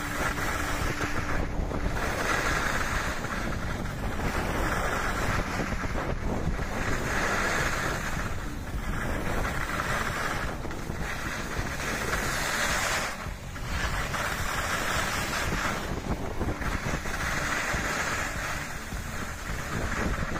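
Wind rushing over the microphone during a ski descent, with the hiss of skis scraping over hard-packed snow swelling and fading every two seconds or so as the skier turns.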